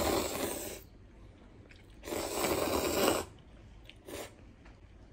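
A man slurping instant ramen noodles from a cup: a long slurp at the start, a second one about two seconds in lasting about a second, and a short one near the end.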